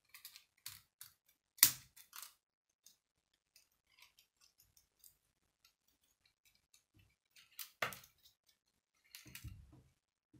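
K'nex plastic rods and connectors clicking and snapping together as a model is assembled by hand. There is a series of sharp clicks, with the loudest snap about one and a half seconds in, scattered faint plastic ticks, and another cluster of clicks and soft knocks near the end.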